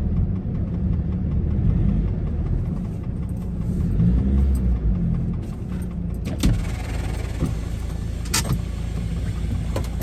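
Ford Transit van's engine idling steadily, heard from inside the cab, with a few sharp clicks in the second half.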